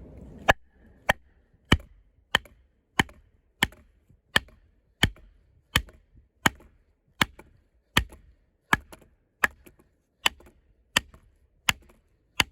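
A combat knife being batoned through a knotty log: about eighteen steady, evenly spaced strikes on the blade's spine, roughly one and a half a second, driving the thick steel blade down into the wood.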